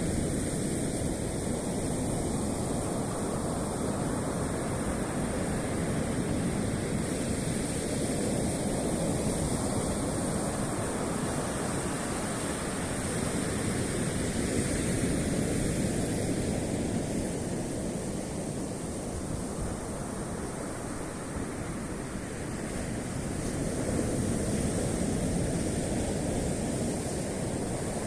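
Black Sea surf washing onto the shore: a continuous rushing that swells and eases slowly over several seconds.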